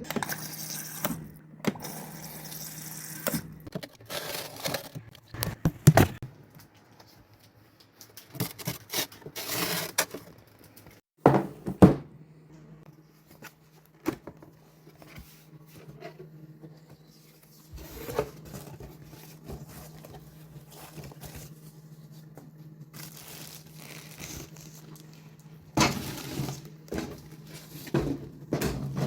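Cardboard box and packaging being opened and handled: tearing, plastic crinkling, and scattered knocks and thuds, with the loudest knocks about 6 and 12 seconds in. A steady low hum runs underneath.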